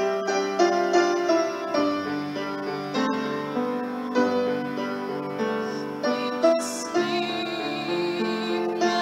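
Grand piano played with a steady flow of broken chords. About seven seconds in, a woman's singing voice with vibrato joins over the piano.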